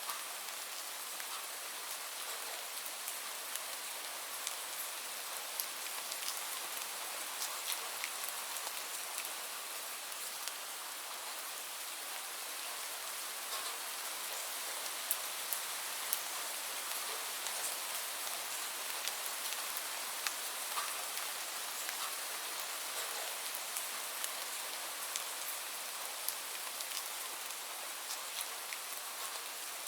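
Steady rainfall: an even hiss of rain with many small, sharp drop ticks scattered through it.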